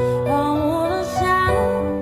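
Slow, gentle music with a singing voice gliding between long held notes over sustained chords.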